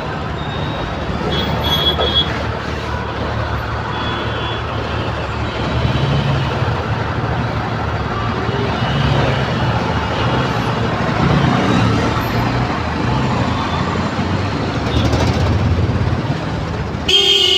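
Slow, congested highway traffic heard from close among the vehicles: a steady low engine hum and road noise, with a few short high beeps a couple of seconds in and a loud vehicle horn sounding near the end.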